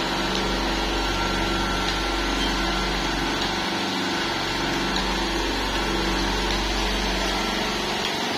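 Buffalo V5S electric cigarette filling machine running, its motor a steady, even hum.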